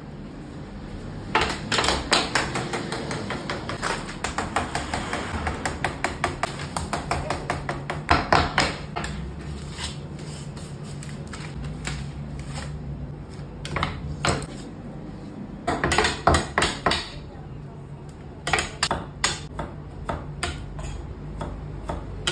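Steel butcher's knives clicking and chopping on a cutting board in bursts of sharp strikes, blade against blade and blade against board, with a fast run of quick chops several seconds in.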